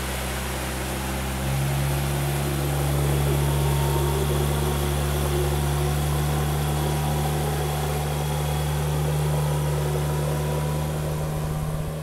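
An engine running steadily, a low hum that gets louder about one and a half seconds in.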